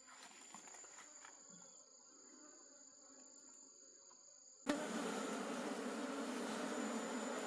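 Insects in the forest making a faint, steady high-pitched trilling. About four and a half seconds in, this cuts abruptly to a much louder, steady rushing noise with a low hum under it.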